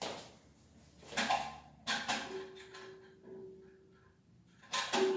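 Plastic toilet-cistern flush parts being handled and knocked, a few short clatters about a second in, two seconds in and near the end, with a faint steady tone in between.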